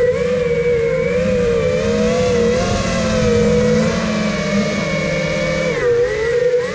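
Brushless motors and propellers of a 5-inch freestyle FPV quadcopter (Nazgul Evoque 5) whining in flight, the pitch wavering up and down with the throttle. The pitch dips briefly near the end, then climbs again.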